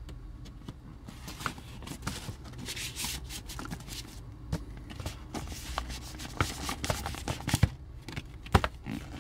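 Cardboard LaserDisc jacket and paper inner sleeve being handled as the disc is slid back into its jacket: rustling and sliding, with scattered taps and knocks.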